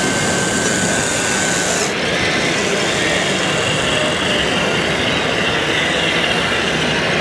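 Radio-controlled Volvo wheel loader model working a bucket of soil, its small electric drive and hydraulic motors whining over the steady din of a busy hall; a high whine cuts off suddenly about two seconds in.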